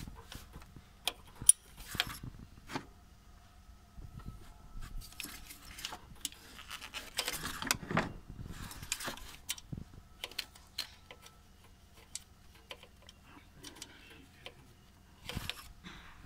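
Metal tools and parts clinking and rattling during hand work on a car engine, with a few sharp clicks and a stretch of rustling in the middle.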